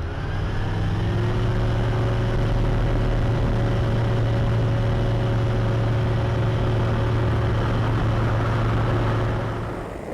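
Super Guépard SG10A ultralight's engine running at a steady speed, a constant low drone that drops off in level shortly before the end.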